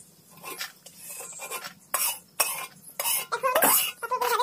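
Metal spatula scraping and clinking against an iron kadai and a steel plate in a string of short, irregular scrapes, lifting freshly fried rice-flour papad out of the oil.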